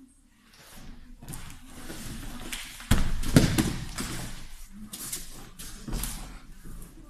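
Bodies thudding and scuffing on a gym mat during grappling, with a heavy thud about three seconds in and smaller thuds near the end.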